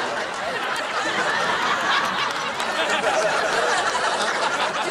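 Studio audience laughing loudly and steadily throughout.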